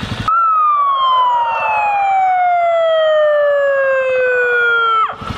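Electronic siren on a police patrol motorcycle sounding one long wail. It starts just after the beginning, falls slowly and steadily in pitch for about five seconds, then cuts off abruptly.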